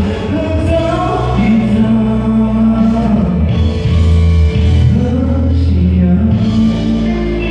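A man singing a Mandarin pop love song live into a microphone over a backing track, amplified through the stadium sound system. His held notes glide up and down over a steady, bass-heavy accompaniment.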